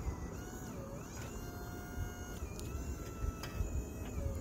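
Wood-Mizer LT35 sawmill running, its hydraulics whining as the white oak log is rolled on the bed. The whine dips in pitch when the hydraulics take the load, about a second in and again near the end, over a low engine rumble, with a few light clunks.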